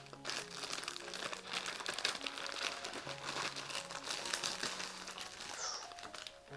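Clear plastic packaging sleeve crinkling and rustling continuously as a diamond-painting canvas is handled and slid out of it by hand.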